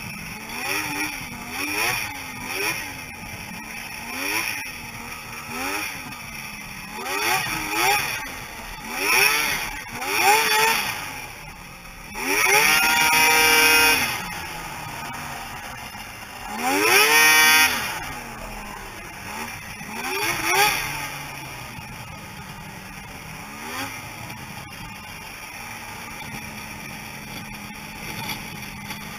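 Snowmobile engine being worked on and off the throttle, its pitch rising and falling about once a second, then two long high-revving pulls of about two seconds each in the middle. It settles to a steady, lower running note for the last third.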